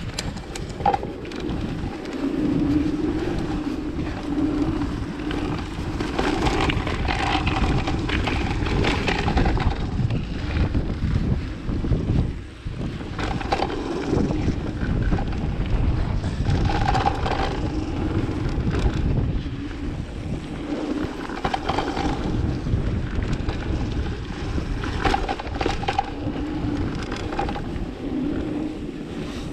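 Mountain bike riding down a trail: tyres rolling and the bike rattling over bumps, with wind rushing over the microphone.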